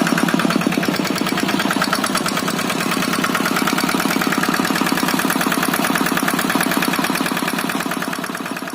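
Kubota RD65DI-1S single-cylinder diesel engine running steadily with a rapid, even knock of its firing strokes, getting slightly quieter near the end.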